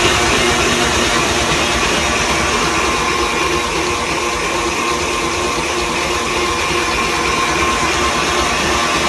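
Electric mixer motor running steadily at medium speed, beating cake batter.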